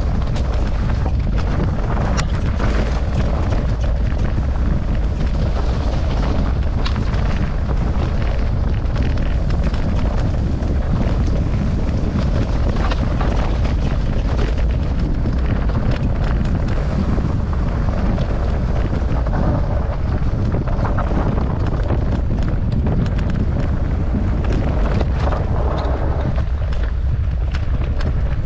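Wind buffeting the camera microphone on a mountain-bike descent, with the bike rattling over rough ground in many small knocks and clatters.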